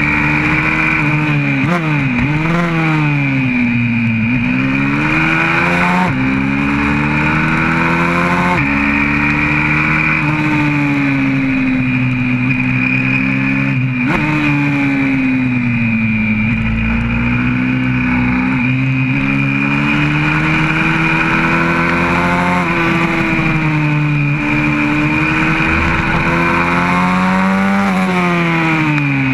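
Single-cylinder four-stroke engine of a YCF 125cc pit bike at racing speed, heard from on board. The engine note rises and falls continually, with several sudden jumps in pitch as it is shifted through the gears and eased off for corners.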